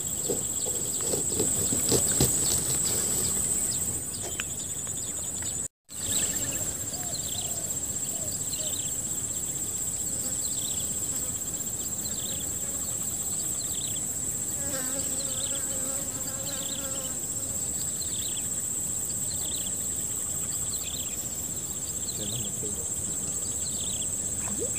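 Steady high-pitched drone of insects. From about six seconds in it is joined by a short, falling chirp repeating about once a second. The sound cuts out completely for a moment just before the chirping begins.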